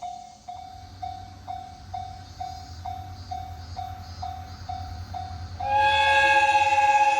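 Japanese level-crossing warning bell ringing its repeating "kan-kan" at about two strikes a second, over the low rumble of an approaching train. About six seconds in, the GV-E197 train's horn sounds, long and loud.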